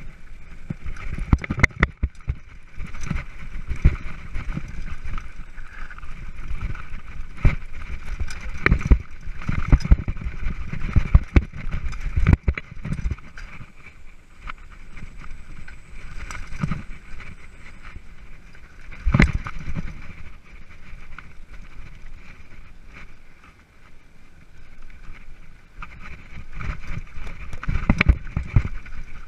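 Mountain bike ridden over a rough dirt singletrack: steady rolling noise with irregular knocks and rattles as the bike jolts over bumps, coming in clusters.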